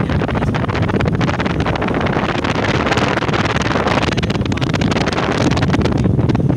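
Loud wind buffeting on the microphone of a phone carried on a moving vehicle, over the vehicle's steady running and road noise.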